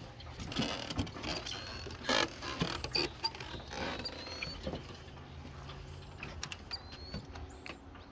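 Lakeside ambience: irregular knocks and creaks, busiest in the first few seconds. Short rising bird chirps come through about four times, with a faint low drone in the second half.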